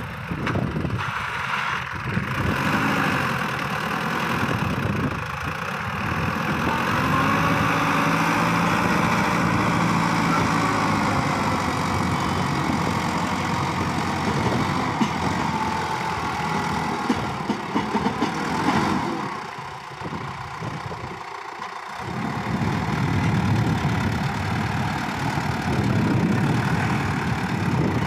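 Sonalika DI 750 III tractor's diesel engine running under heavy load as it pulls a trailer piled with soil. Its loudness eases for a couple of seconds about two-thirds of the way through, then rises again.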